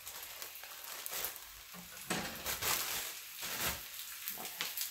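Corn tortillas sizzling in hot pork lard in a skillet, a steady hiss with irregular crackles, as they crisp into tostadas.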